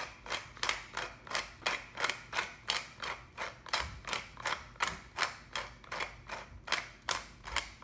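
Tall wooden pepper mill grinding peppercorns, its top twisted in steady strokes that give a short crunch about three times a second.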